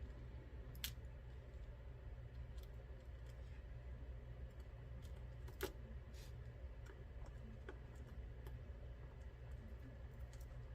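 Faint scattered metallic clicks and ticks of small tools handling the pins and springs of a Mul-T-Lock MT5+ lock cylinder being taken apart, with two sharper clicks about a second in and halfway through, over a low steady hum.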